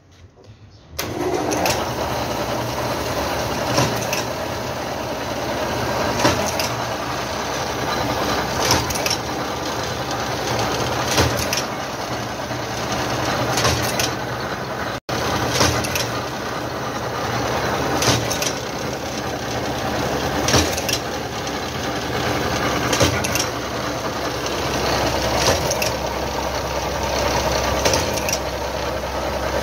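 Iron wire straightening and cutting machine running: a steady mechanical din that comes on about a second in, with a sharp clack about every two and a half seconds as each length of wire is cut.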